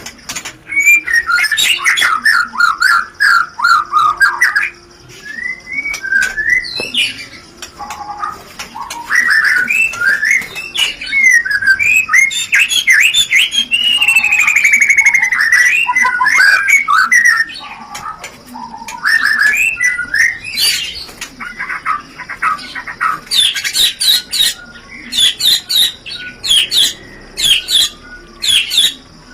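White-rumped shama (murai batu) giving rapid chattering mating calls, the 'rencetan' of a bird in breeding condition: quick runs of sharp notes in bursts with short pauses. Midway there is one long buzzy note that slides down in pitch.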